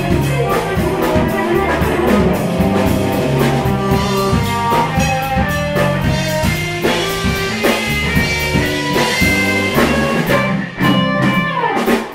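Jazz fusion band playing live, with electric guitar, drum kit and electric bass, in the closing bars of the tune; the music stops sharply near the end.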